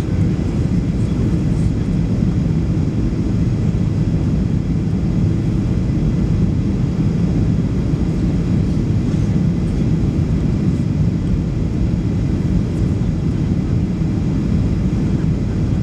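Steady low rumble of engine and airflow noise inside the cabin of a Boeing 737 MAX airliner on its approach to land.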